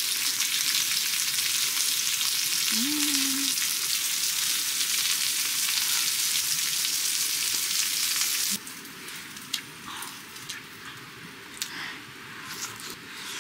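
Food sizzling on a hot grill pan: a steady hiss that cuts off abruptly about eight and a half seconds in, leaving quieter scattered clicks and taps. A short hummed "mm" comes about three seconds in.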